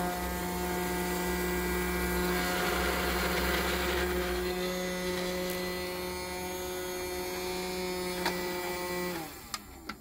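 Small electric motor of a toy vacuum cleaner running with a steady hum, blowing foam beads around inside its clear dust container. There is a click a little after 8 s, then the motor winds down in pitch and stops about 9 s in.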